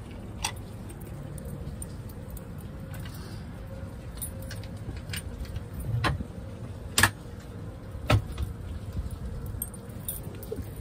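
Light rattling and clicking from things being handled, with sharp knocks about half a second in and again near six, seven and eight seconds in, over a steady low hum.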